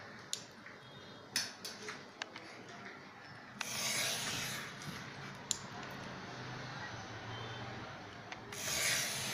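Utility knife blade scraping through paper along a plastic ruler: a few scratchy cutting strokes, with light clicks between them.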